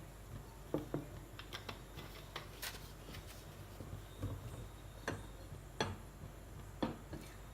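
Scattered light clicks and taps, about a dozen spread irregularly, over a faint low hum.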